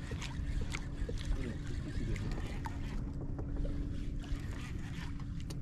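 Small boat at sea: a steady motor hum, ending about five seconds in, over a low rumble of wind on the microphone, with scattered light clicks and knocks.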